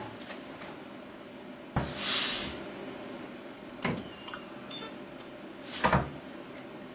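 Air-actuated opposed weld head of a capacitive discharge micro resistance welder cycling: a sharp clack followed by about half a second of air hiss just under two seconds in, a lighter click near four seconds, and a sharper snap of clicks near six seconds.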